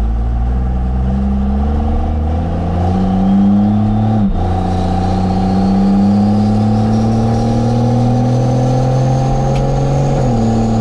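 First-gen Ram's 12-valve Cummins diesel accelerating, heard inside the cab. The engine note climbs, drops sharply as the automatic transmission shifts up about four seconds in, climbs again, and drops at a second upshift near the end. A faint whistle rises slowly above it. The transmission's low line pressure has just been turned up to firm its shifts.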